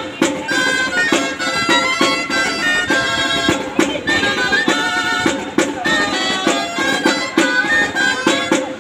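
Traditional folk dance tune on a reed wind instrument, a quick running melody over a regular drum beat.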